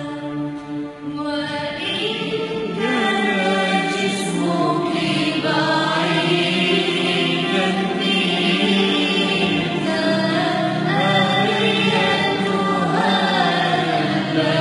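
A girl singing a hymn to the Virgin Mary, with choral voices; the singing grows fuller and louder about two to three seconds in.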